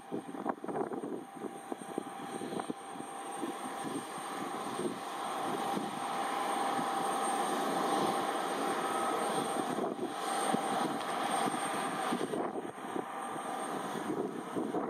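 Embraer ERJ175 regional jet's GE CF34-8E turbofan engines running during pushback: a broad jet rush with a steady high whine, swelling over the first several seconds and then holding level.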